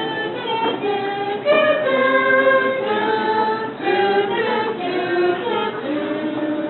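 Several voices singing together a cappella, in held notes that change pitch every half second to a second.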